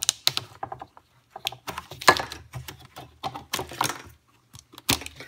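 Irregular plastic clicks and rattles from a wiring harness's corrugated plastic loom and clips being handled and seated in the slots of a plastic radiator fan shroud.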